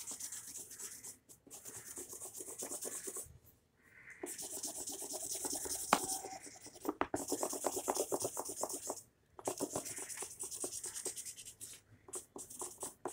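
Colouring on paper: fast back-and-forth scribbling strokes filling in an area of colour, in about four runs of a few seconds each with short pauses between them.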